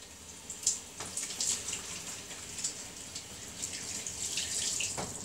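Kitchen tap running into the sink while hands are washed under it, the water splashing; it stops near the end.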